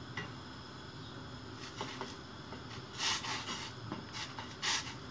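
Water boiling in a stainless steel pot with an egg poaching in a ladle held in it: a steady bubbling hiss. Short louder splashing noises come about three seconds in and again near the end, as the ladle shifts in the water.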